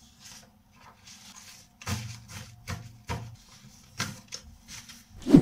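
Sheets of drawing paper being shuffled and lifted, rustling in short bursts with soft knocks as they are moved about on a table, and a louder low thud near the end.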